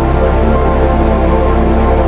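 Background music: sustained held chords over a low steady drone.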